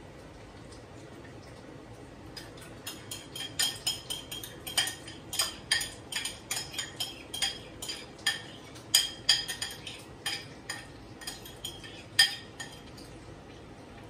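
A metal spoon knocking and scraping against a bowl as beaten egg is scraped out into a frying pan: irregular sharp, ringing clinks, a few a second, starting a couple of seconds in.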